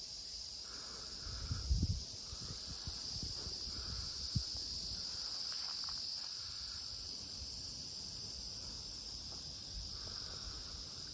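A steady, high-pitched chorus of insects. Wind buffets the microphone about two seconds in, and there is a short bump a little later.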